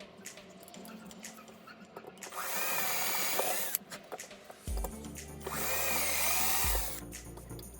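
Handheld power drill running in two bursts of about a second and a half each, its motor pitch rising and falling with the trigger, over background music.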